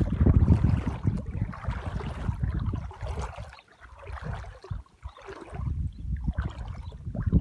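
Irregular splashing and sloshing of water as vobla (Caspian roach) thrash in flooded grassy shallows while spawning, heaviest in the first few seconds and thinning out midway before picking up again.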